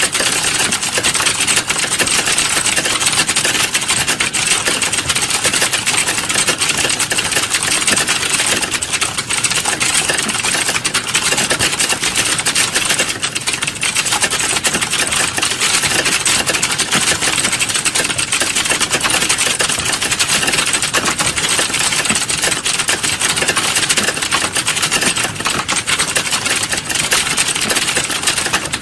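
Fast, continuous typing on a computer keyboard, a dense unbroken stream of key clicks.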